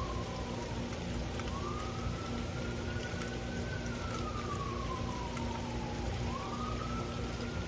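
Steady rain, with a siren wailing through it. The siren's tone climbs quickly about a second and a half in, falls away slowly over several seconds, then climbs again near the end.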